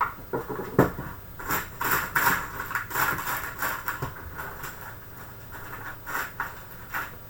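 Small screwdriver turning small screws into an SSD mounting bracket: irregular bursts of metal scratching and clicking, busiest in the first few seconds and thinning out toward the end.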